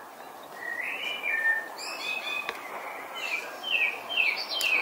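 Small birds chirping: a few short whistled phrases, then a run of quick falling chirps, about three a second, in the second half. A single sharp click about halfway through.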